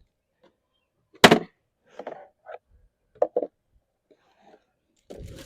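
Knocks and clatter from handling the mower's mulching plug, the insert used in place of the grass catcher: one sharp knock about a second in, then several lighter knocks and rustles.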